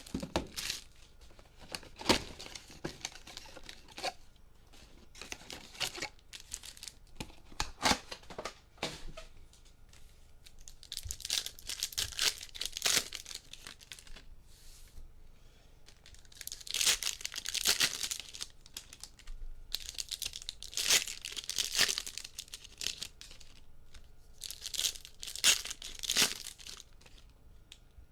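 Trading-card pack wrappers being torn open and crinkled by hand, with scattered light clicks and handling noises at first, then several crackling bursts of tearing foil spaced a few seconds apart.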